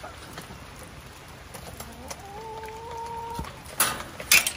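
A hen gives one long, drawn-out call that rises at the start and then holds steady for over a second. Near the end come a few sharp metal clanks from the chicken run's wire gate.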